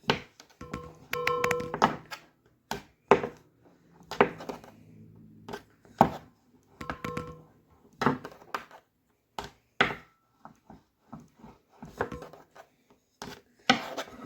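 Rolling pin working clay on a hard tabletop: a string of irregular thunks and knocks, some with a brief ringing.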